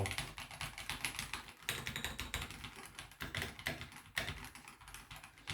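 Rapid typing on an Akko 5075B Plus mechanical keyboard fitted with lubed Akko Wine Red switches: a fast run of keystroke clacks with a short pause about a second and a half in.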